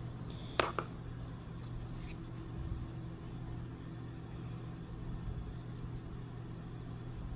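Steady low mechanical hum in the room, with one short tap about half a second in.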